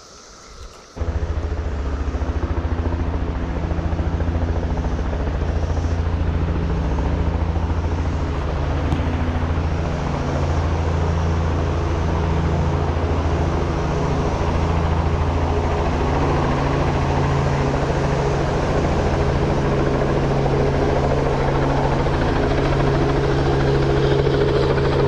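Helicopter running close by, its rotor beating fast and steady over a steady engine tone; it cuts in abruptly about a second in and grows slightly louder near the end.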